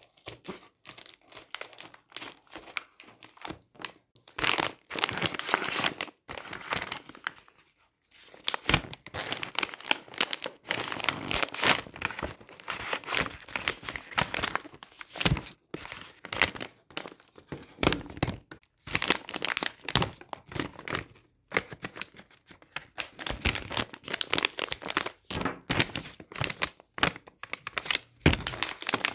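Plastic blind-bag packaging being torn open and crinkled by hand: irregular bursts of rustling and tearing with short pauses.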